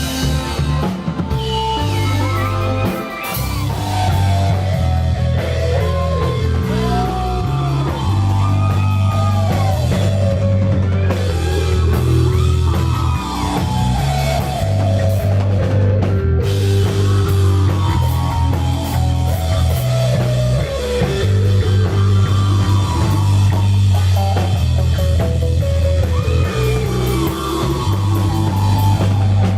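Rock band playing live: a lead electric guitar line over heavy bass and a drum kit.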